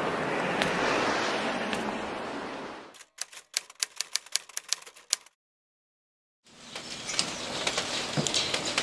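A steady hiss of ambience fades out. Then a quick run of typewriter key clicks, about six a second for some two seconds, plays as a sound effect for a typed-on title. After about a second of dead silence the ambience returns with small rustles and knocks.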